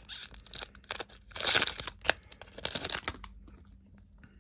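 Foil Pokémon booster-pack wrapper crinkling in a series of rustles as it is handled and the cards are pulled out, the loudest about a second and a half in, then only faint handling.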